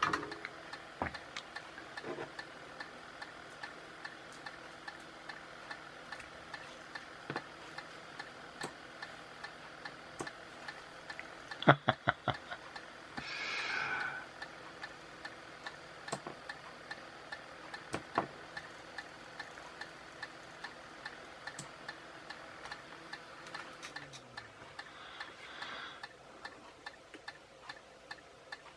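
Regular ticking, about two ticks a second, with a cluster of sharp clicks and a brief hiss about halfway through.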